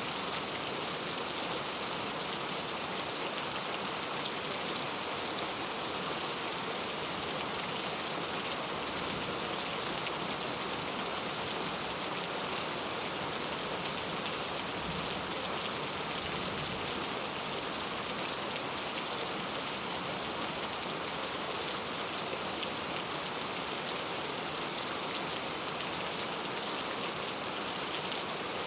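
Heavy rain falling steadily in an even hiss, with faint low rumbles around the middle.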